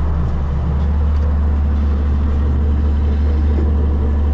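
Tractor engine running steadily, a constant low drone with no change in speed.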